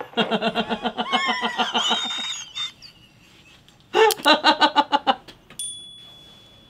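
People laughing: a long run of rapid giggling that rises and falls in pitch, then, after a short lull, a second burst of about half a dozen quick 'ha' pulses.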